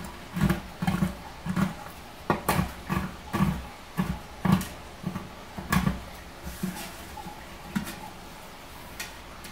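Chef's knife chopping dark chocolate discs: irregular sharp knocks, about two a second, thinning out after about six seconds.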